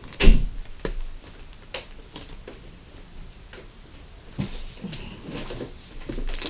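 MacBook Pro's aluminium lid shut with a thud about a third of a second in, followed by a few light clicks and taps. Near the end, a cluster of knocks and handling noise as the laptop is turned over on the table.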